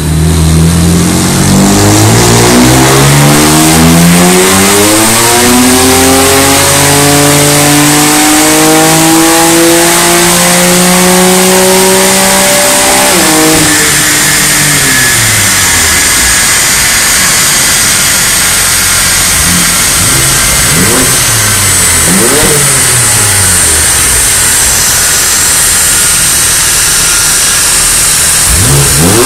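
BMW F80 M3's twin-turbo straight-six, Stage 1 remapped and breathing through an Armytrix valved cat-back exhaust, making a full-throttle pull on a chassis dyno: the pitch climbs steadily for about thirteen seconds, then the throttle closes and the revs fall away as the rollers coast down. In the second half a few short revs rise and fall quickly.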